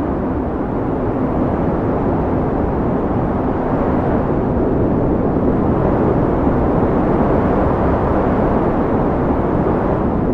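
Steady, deep wind blowing, a low rushing noise that swells a little in the middle and eases again near the end.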